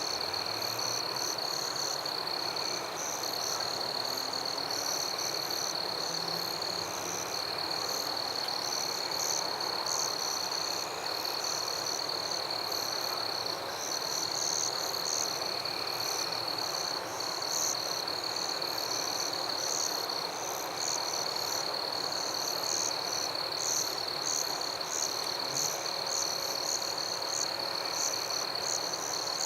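Night chorus of frogs and insects: a steady high trill runs throughout, with rapid repeated high chirps and a low hiss beneath.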